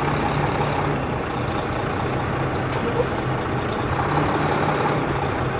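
Semi-truck diesel engine running steadily at low revs while the tractor-trailer reverses slowly, a steady low hum.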